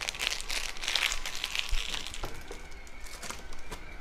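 Crinkly rustling of dry rice paper sheets being handled, loudest in the first second or two, with a few light clicks and knocks.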